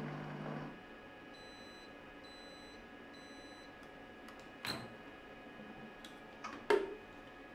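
Compact Cook Elite kitchen robot's motor hum stops, then the machine gives three short high beeps to signal that the cooking program has finished. A couple of seconds later come sharp plastic clacks as the lid's locking arms are released and swung open, the loudest near the end.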